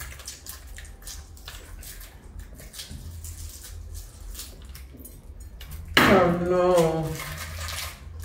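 Boiled eggshells cracking and being picked off by hand: a scatter of small dry clicks and crackles. About six seconds in, one of the eaters makes a loud drawn-out vocal sound, the loudest thing heard.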